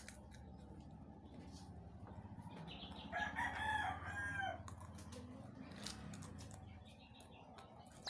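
A rooster crowing, one drawn-out call from about three seconds in to nearly five seconds, over faint scattered clicks and crunches of crackers being eaten.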